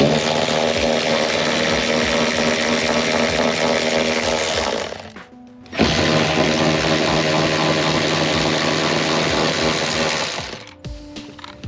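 Power tool running in two long bursts of about five seconds each, with a short pause between, undoing the 14 mm bolts that hold the seat down.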